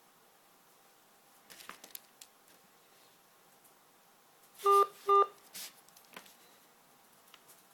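Two short electronic telephone beeps about half a second apart, heard over a quiet open phone line, with faint clicks and rustles of the handset before and after.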